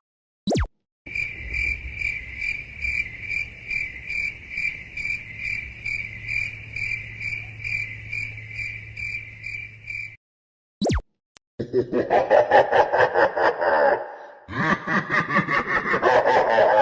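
Crickets chirping in an even, steady pulse for about nine seconds: the stock 'awkward silence' meme sound effect. After a short break with a click, a different, busier effect with rapid pulses fills the rest.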